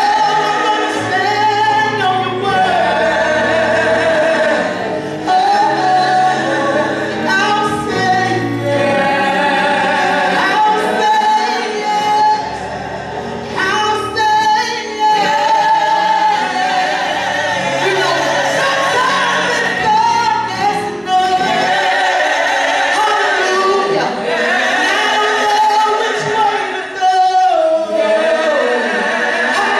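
A women's gospel vocal group singing live into microphones: a female lead carries the melody over backing voices. A low bass line runs beneath and drops out about two-thirds of the way through.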